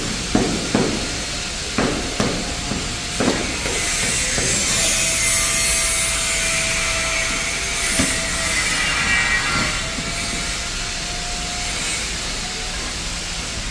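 Hand tools working cement screed on stairs: a few sharp knocks in the first few seconds, then a long, rough scraping as the trowel or float is drawn across the mortar.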